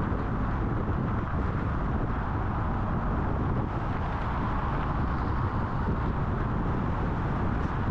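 Steady road noise of a car driving at highway speed: a constant low rumble with a hiss above it, unchanging throughout.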